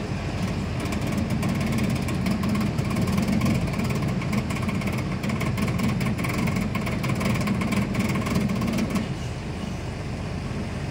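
Heavy diesel engine running steadily with a rough clatter, a little louder from about a second in and easing off near the end.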